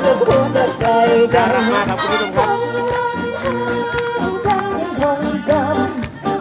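Live band with a female lead singer performing an Indian-styled Thai pop song through a PA speaker: a wavering sung melody over wind instruments and a steady bass line.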